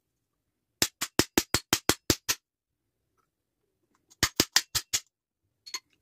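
Rapid runs of sharp metallic clicks at about six a second, a burst of about a second and a half, then a shorter one of about a second, and two fainter clicks near the end: a ratchet being worked to tighten the fan onto a vacuum cleaner motor.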